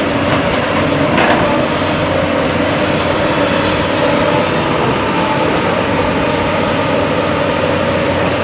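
JCB excavator's diesel engine running steadily while digging in mud, with a brief knock about a second in.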